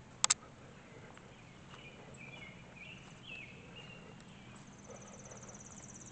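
Birds singing faintly in short chirping phrases, joined about two-thirds of the way in by a steady high-pitched insect trill like a cricket. A sharp double click comes just after the start.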